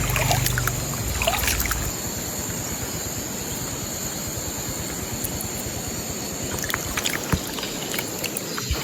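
Steady rush of flowing river water with a few small clicks and knocks, and a low hum during the first two seconds.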